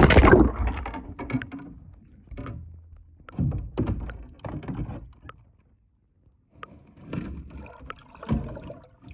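A phone on a tripod splashing into lake water beside a kayak, then recording from underwater: muffled thumps, knocks and gurgles carried through the water, with a brief total cut-out about six seconds in.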